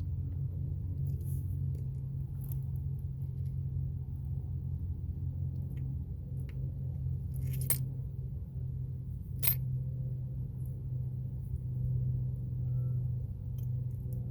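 Two sharp metallic clicks, a couple of seconds apart, with a few fainter ticks, from hand tools and wires being worked onto a car battery terminal. A steady low hum runs underneath.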